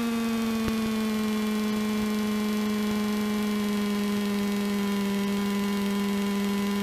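Robin DR400's piston engine and propeller droning steadily at low taxiing power, heard from inside the cockpit; the pitch sags slightly over the seconds.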